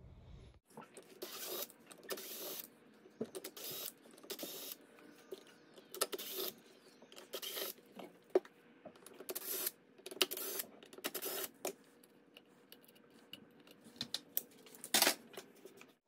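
Hands opening an aluminium brushless motor controller case with a screwdriver: irregular short scrapes and clicks as the small end-plate screws are backed out and the metal case is handled.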